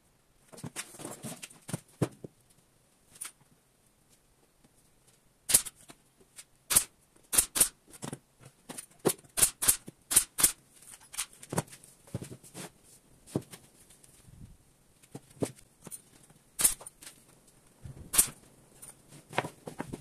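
Pin nailer firing pins into MDF panels: a series of sharp snaps at irregular spacing, several in quick succession around the middle, with softer knocks of boards being handled near the start.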